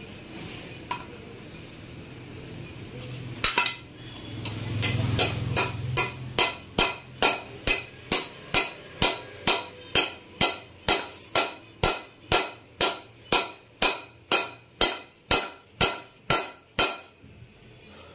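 A hammer striking metal in an even rhythm: about thirty sharp, ringing blows, a little over two a second, starting about three and a half seconds in and stopping near the end. The blows drive a ball bearing into its seat in a Yamaha RX135 aluminium crankcase half.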